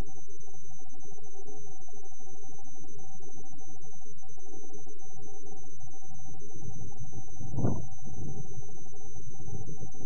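Steady electrical hum with an uneven low throbbing rumble, and a single soft thump about three-quarters of the way through. No owl call is heard.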